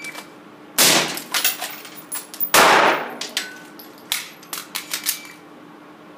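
A short electronic beep, then two gunshots about two seconds apart with a reverberant tail: an AR-type carbine firing, then a Glock pistol in a rifle-to-pistol transition after a rifle stoppage. A run of lighter metallic clicks and clacks of weapon handling follows.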